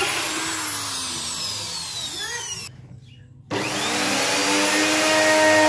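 Corded electric drill running down, its whine falling in pitch. After a short break, an electric plunge router starts up, its whine rising in pitch and then settling into a steady run.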